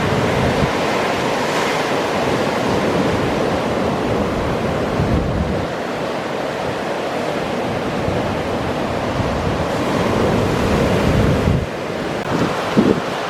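Ocean waves washing in steadily, with wind buffeting the microphone in low gusts.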